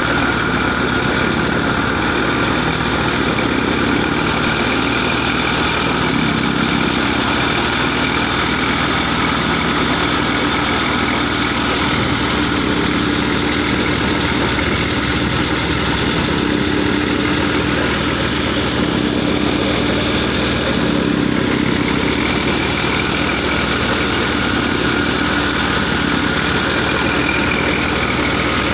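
Eicher 485 tractor's three-cylinder diesel engine running steadily under load, driving a hopper thresher whose drum and fans whir continuously as it threshes.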